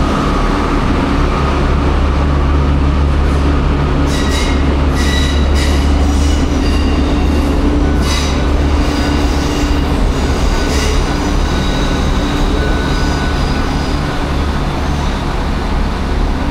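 Diesel train engine running with a steady low hum, with a string of short, high-pitched metallic squeals from train wheels or brakes between about four and eleven seconds in.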